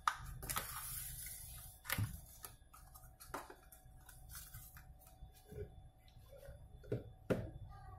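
Light clicks and knocks of empty clear plastic tubs being set down and moved about on a countertop: separate taps spread over several seconds, with a short rustle of plastic about half a second in and two sharper knocks close together near the end.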